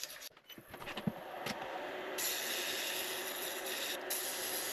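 Abrasive rubbing on a wooden pen blank on a lathe: a few light clicks and knocks at first, then a steady sanding hiss from a little under halfway in.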